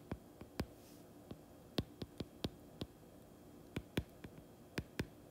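Stylus tip tapping on a tablet's glass screen while handwriting: short sharp clicks, irregular, about three a second.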